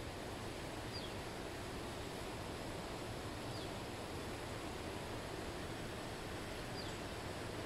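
Steady background hiss of outdoor ambience, with a faint short falling chirp from a small bird three times, about every three seconds.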